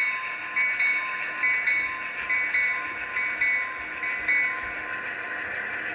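HO-scale Walthers F7A and F7B diesel locomotives running past, their Tsunami sound decoders playing EMD diesel engine sound through the small onboard speakers. Paired clicks repeat about once a second, like wheels crossing rail joints.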